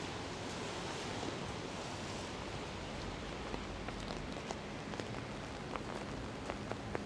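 Pouring rain: a steady, even hiss, with scattered sharp ticks of single drops hitting close by.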